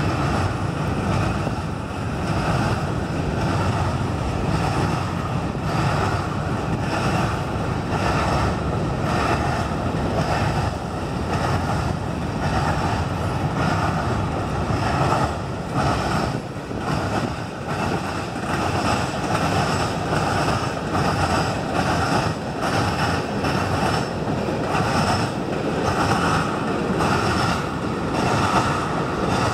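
Freight cars of a Canadian Pacific train, covered hoppers and then tank cars, rolling past with a steady rumble of wheels on the rails. Wind buffets the microphone.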